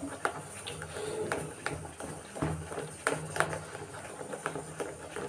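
A hand beating thinned dosa batter in a steel bowl: irregular wet slaps and squelches, about two or three a second, as water is worked in to bring the batter to a pouring consistency.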